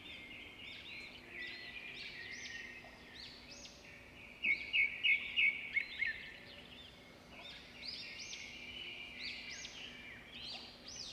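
A chorus of small birds chirping and singing, with many short rising-and-falling notes overlapping. Around the middle comes a run of about seven louder, sharp chirps.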